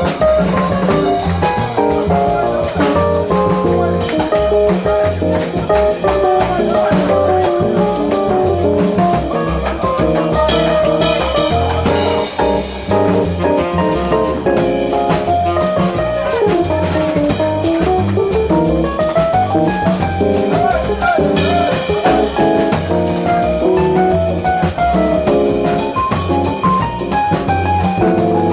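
Jazz quartet playing: a fast, winding melodic line that sweeps up and down in pitch, over drum kit and low accompanying notes.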